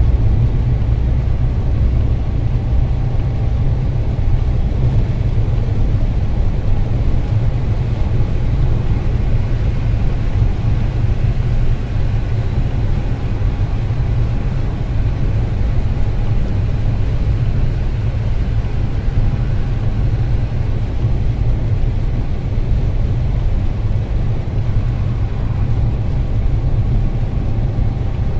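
Steady low rumble of a car driving on a wet highway, heard from inside the cabin: tyre and road noise over the running engine.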